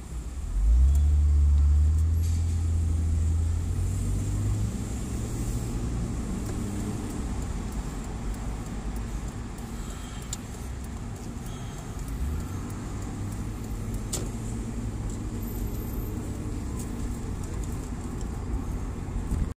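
Car driving, heard from inside the cabin: engine and road noise. The engine note jumps up louder as the car pulls away about a second in, then eases, and picks up again about twelve seconds in.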